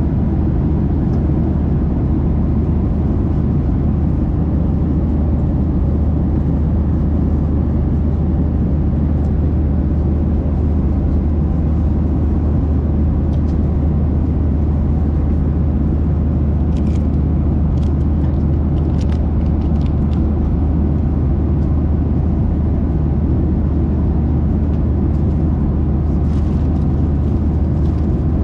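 Steady, loud cabin drone of a Boeing 737-800 airliner in flight: engine and airflow rumble from its CFM56-7B turbofans, heavy in the low end. A few faint light clicks come about two-thirds of the way in and again near the end, from the snack tray and dessert cup being handled.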